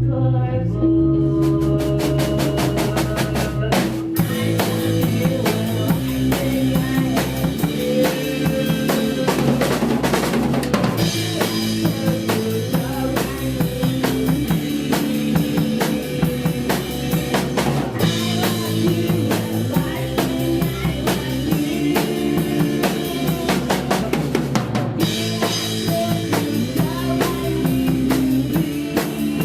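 Grunge rock band playing live and loud: bass and guitar, with the drum kit (bass drum, snare and cymbals) coming in about a second in and driving a steady beat.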